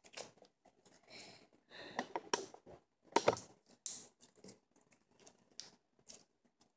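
Clear glue slime being squeezed and stretched by hand, giving irregular sticky squelches with small pops and clicks, busiest in the middle.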